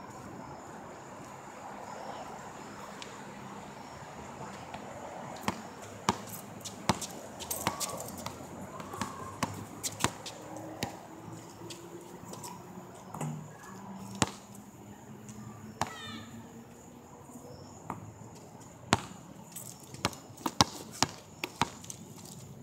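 Basketball bouncing on an asphalt court as a player dribbles and shoots: irregular sharp thuds, starting about five seconds in and coming in clusters.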